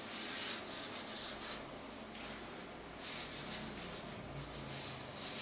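Whiteboard eraser wiping marker writing off a whiteboard in a series of short rubbing strokes.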